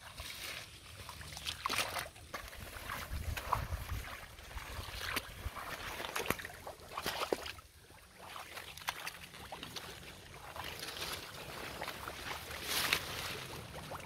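Water splashing and sloshing irregularly as water hyacinth is pulled from the water, with short bursts of rustling.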